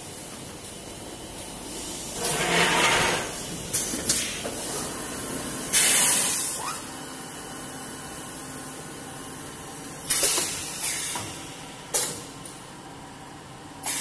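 Double-station HDPE bottle blow molding machine cycling: several loud bursts of compressed-air hiss from its pneumatic blowing and valve exhausts, with sharp clacks of the pneumatic cylinders and moulds between them.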